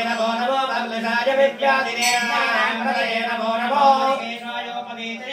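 Male voices chanting Vedic mantras in a continuous sing-song recitation over a steady held note.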